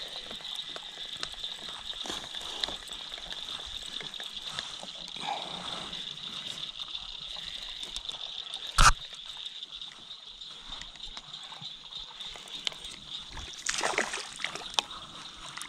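A hooked largemouth bass splashing at the surface as it is brought to the kayak, loudest near the end. A steady high insect drone runs throughout, and there is one sharp knock about nine seconds in.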